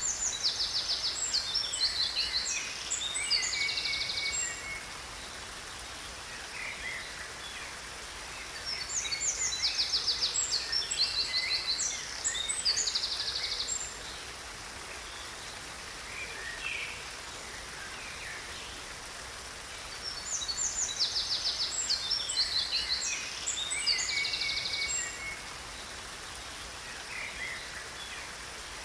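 A songbird sings three phrases of quick trills and chirps, each lasting a few seconds and repeating about every ten seconds, over a steady hiss of falling water from a waterfall.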